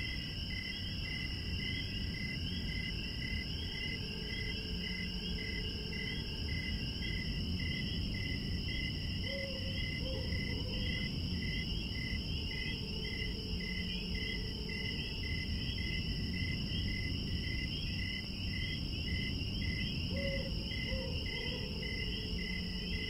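Night insects chorusing: a steady high trill with a cricket chirping evenly about twice a second, over a low rumble. Twice, about nine and twenty seconds in, a faint low hooting call drops briefly in pitch.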